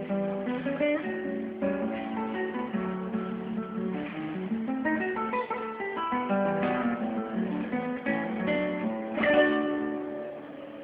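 Acoustic guitar playing a choro, plucked melody runs over a bass line, with a louder strummed chord near the end.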